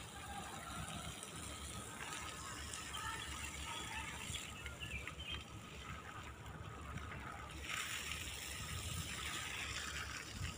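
Faint hiss and patter of water from a garden hose spraying onto soil furrows, over a low uneven rumble, growing somewhat louder near the end.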